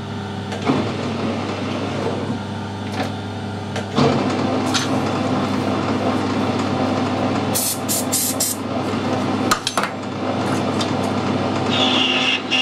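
Harrison lathe starting up about four seconds in and then running, with sharp clicks from its controls. Near eight seconds a parting tool briefly scrapes the spinning aluminium pulley to mark the groove width. A steady high whistle starts near the end.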